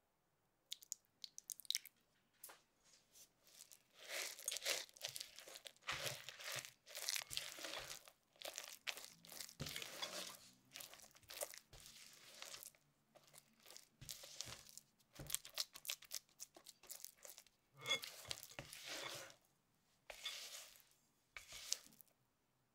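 Spatula stirring and folding flour and nuts into melted chocolate in a glass bowl, making a thick cookie batter: irregular strokes against the bowl with short pauses between them, and a few light clicks in the first two seconds.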